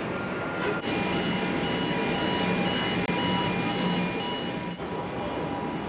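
Steady running of heavy port vehicles and machinery, with a reversing alarm beeping about twice a second for a few seconds.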